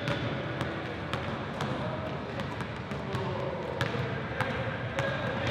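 Basketball being dribbled on a hardwood gym court, bouncing about every half second, with players' voices in the background.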